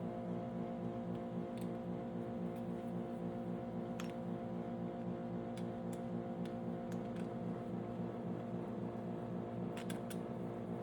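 Steady machine hum, with a few light clicks and taps about 4, 6 and 10 seconds in.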